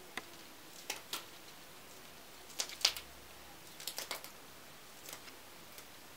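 Fresh green beans snapping crisply as they are broken into short pieces by hand, about ten sharp snaps in irregular ones, twos and threes.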